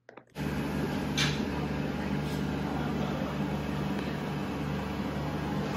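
Steady low machine hum under an even background noise, with two faint clicks about one and two seconds in.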